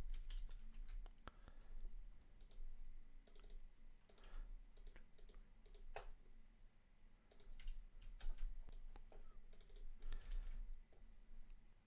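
Faint, irregular clicks of a computer mouse and keyboard keys.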